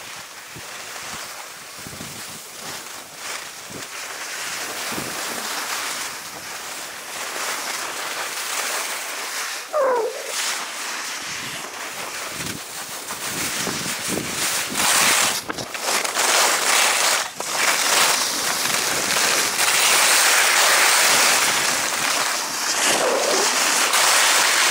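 Skis hissing and scraping over the snow while wind rushes on the action camera's microphone during a downhill run, getting louder in the second half as speed builds.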